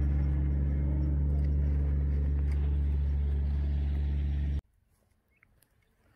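Car engine running steadily with a low, even hum, cutting off suddenly about four and a half seconds in, followed by near silence.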